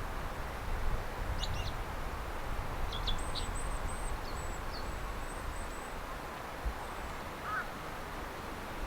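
A few short, high bird chirps and a thin, high broken trill, with one brief lower call near the end, over a steady low outdoor rush.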